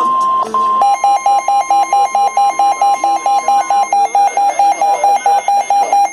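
Emergency alert tones over the radio: a steady high warning tone, then from about a second in a fast-pulsing electronic alarm beep, four or five beeps a second. The steady tone fades out partway through while the beeping goes on.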